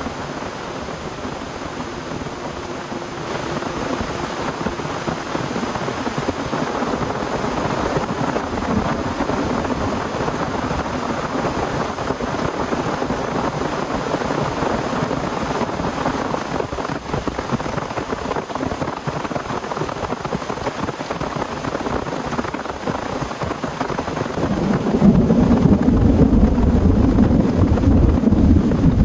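Heavy rain falling steadily. About 25 seconds in, a low rumble of thunder swells up and runs on under the rain.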